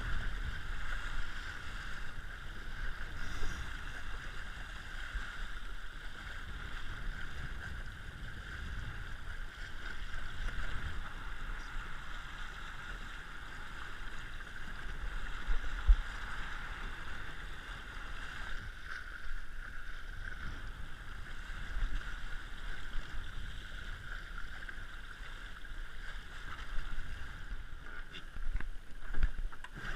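Water rushing along the hull of an RS100 sailing dinghy under way, with wind rumbling on the camera microphone. One sharp low thump about halfway, and a few knocks near the end.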